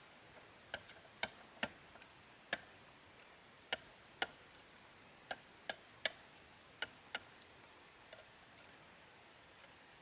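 A series of sharp, short taps or knocks, about a dozen at uneven gaps, some with a faint ring after them.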